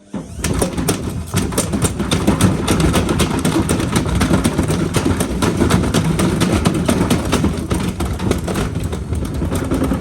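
Hotpoint FMG723 washing machine running hard, cutting in abruptly: a steady motor hum under dense, rapid rattling and knocking.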